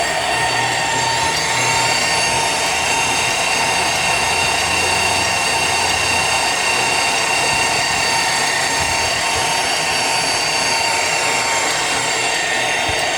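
A power tool running steadily, a constant machine whine over a noisy rasp.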